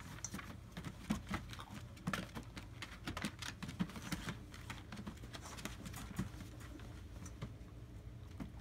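German Shepherd puppies scrabbling and playing on the floor of a hard plastic kiddie pool: quick, irregular clicks and taps of their claws on the plastic, thicker in the first half and sparser later.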